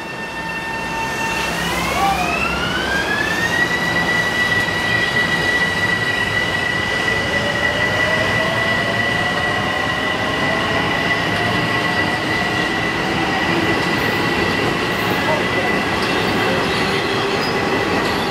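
Metro-North M7 electric multiple unit accelerating away, its propulsion whine gliding up in pitch over about two seconds, then holding as a steady high whine over the rumble of wheels on rail as the cars roll past. A second, lower tone slowly rises through the second half.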